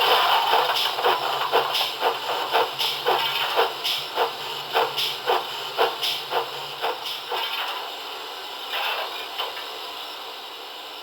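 Sound decoder in an O gauge model GWR 45xx 2-6-2T steam tank locomotive playing exhaust chuffs, about two a second over a low hum, which stop after about seven seconds as the model comes to a stand. A short hiss of steam follows near the end.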